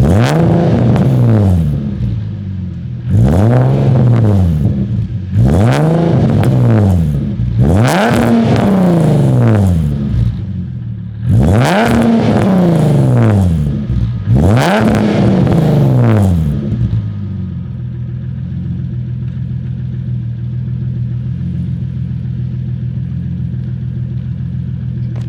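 Nissan/Infiniti G37's 3.7-litre V6 breathing through a newly fitted ISR Single Exit GT exhaust, blipped about six times in quick succession, each rev climbing and falling back, then settling to a steady idle for the last several seconds. The exhaust note is deep and throaty.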